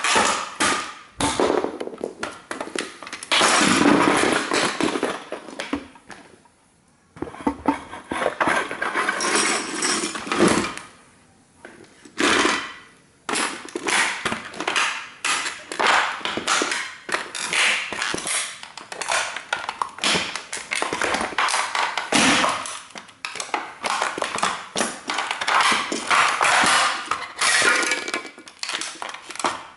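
A 1:18 scale model car being stomped and crushed under sneakers: repeated cracking, crunching and creaking as its parts give way and break, with two brief pauses, about a quarter of the way in and again near the middle.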